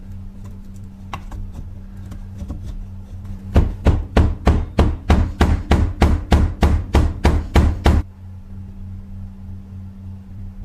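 Rapid, even series of sharp knocks, about four a second for some four seconds, stopping abruptly, over a low steady hum; a few faint clicks come before them.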